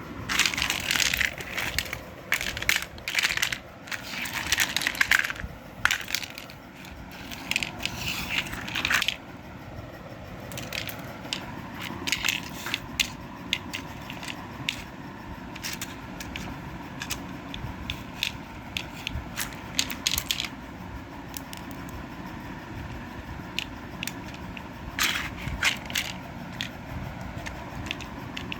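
Crackling and clicking of plastic being handled, dense and busy for about the first nine seconds, then sparser single clicks.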